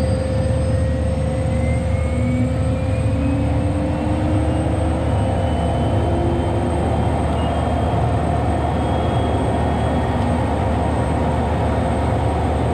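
Allison turbine engine of a Soloy-converted Cessna 206 running steadily: a constant low rumble under a steady whine, with a few faint higher tones slowly rising in pitch.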